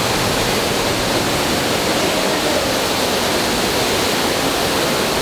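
Loud, steady rush of a man-made waterfall, heard close up from the cave behind the falling water.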